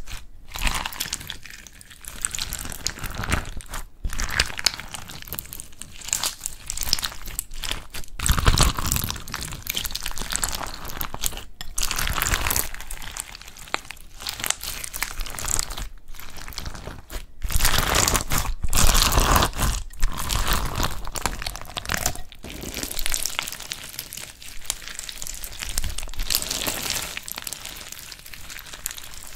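Clear slime packed with small round beads being squeezed, kneaded and stretched by hand: a dense stream of small clicks and squelches as the beads shift through the slime, with several brief breaks.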